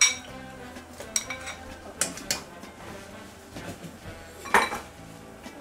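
A metal spoon clinking against a ceramic bowl and a cooking pot as potato pieces are scraped in: several sharp separate clinks, the loudest about four and a half seconds in.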